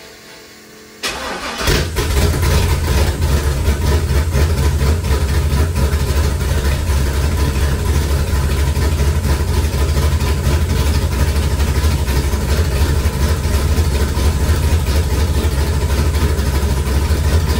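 Swapped 6.0-litre LS V8 in a Chevy S10, running the BTR camshaft, is cranked and catches about a second in. It then idles loud and steady.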